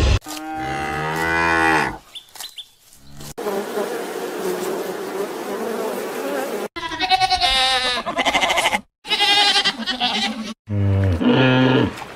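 Cattle mooing: a long low moo at the start, then after a pause several wavering calls and another low moo near the end.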